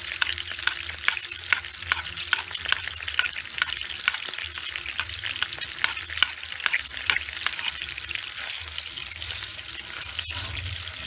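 Ribeye steak sizzling in a pan of hot melted butter as it is basted with a spoon: a steady frying hiss with frequent sharp crackles of spattering butter.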